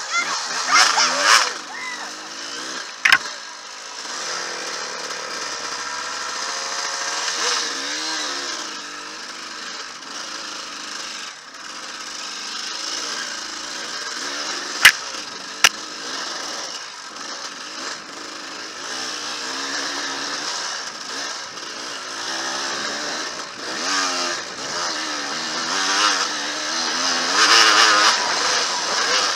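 Dirt bike engine running and revving up and down as it rides a trail, revving hardest about a second in and again near the end. Three sharp knocks cut through it, one about three seconds in and two close together about halfway.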